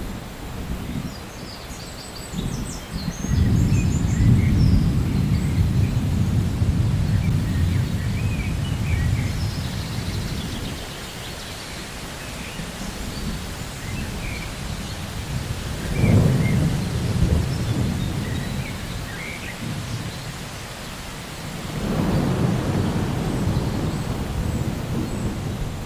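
Steady rain with rolling thunder: a long low rumble starting a few seconds in, a sudden clap and rumble past the middle, and another roll near the end.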